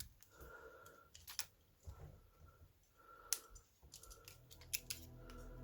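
Handcuffs being worked at the lock: faint, scattered metal clicks and taps, with one louder click about three seconds in and a couple more near the end. Background music fades in near the end.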